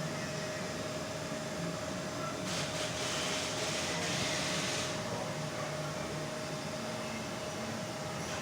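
CNC machine running with a steady hum and a constant whine, with a burst of hissing for about two seconds a few seconds in.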